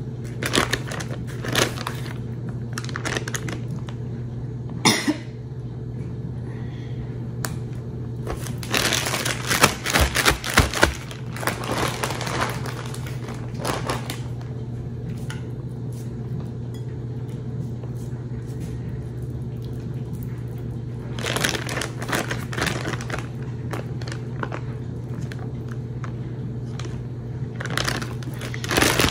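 Chicken pieces frying in hot oil. The crackling sizzle flares up in about four spells of a few seconds each, over a steady low hum.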